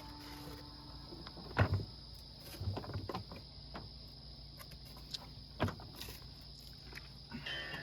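A few scattered knocks and thumps, the two loudest about one and a half and five and a half seconds in, over a steady faint high hum.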